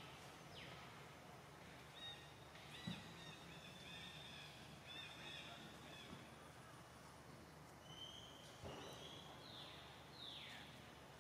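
Faint high-pitched animal calls: a run of short chirping notes about two to five seconds in, then a few brief whistles and two falling squeals near the end.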